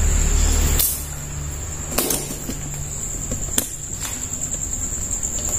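A cricket trilling steadily on one high note, with a low road-traffic rumble that drops away about a second in and a few sharp clicks.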